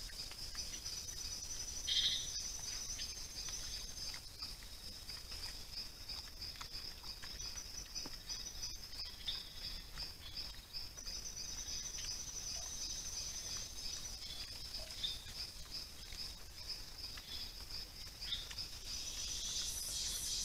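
Steady chorus of night insects, a fast pulsing trill with a higher buzzing trill joining on and off. A short, louder sound comes about two seconds in, and faint scattered clicks are heard throughout.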